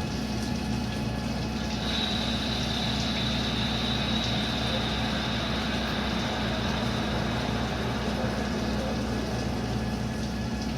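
CNC lathe running, a steady machine hum, while machining a stainless steel part; a high steady whine joins about two seconds in and fades out around seven seconds.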